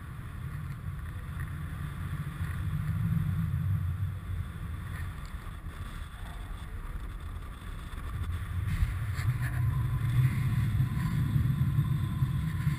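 Wind rushing over the camera microphone as a tandem paraglider flies steeply banked 360° turns: a low buffeting rumble. It swells about three seconds in, eases, then grows louder again from about eight seconds on as the turn steepens.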